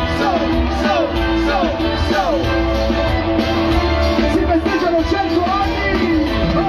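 Live band music played through a PA and heard from within the crowd: electric guitar, drums and bass over a steady held tone, with falling sliding notes repeating about twice a second.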